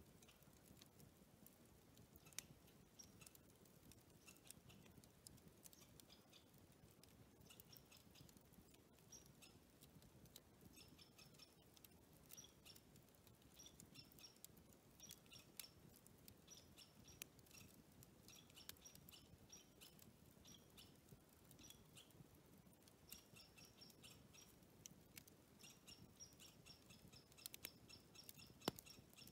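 Faint bird chirping: bursts of rapid, high, repeated notes that come more often in the second half, with scattered light ticks.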